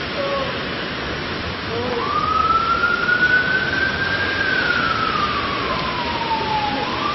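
Heavy rain pouring down on a streaming street, a steady hiss of rain and running water. From about two seconds in a long, clear wailing tone rises slowly, holds, then slides down before starting to rise again near the end.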